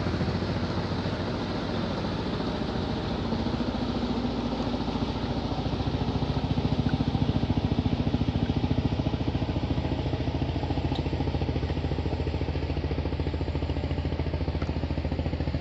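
Motor boat engine running steadily, a low, rapidly pulsing chug with a hum that swells a little midway, from a large wooden river boat passing by.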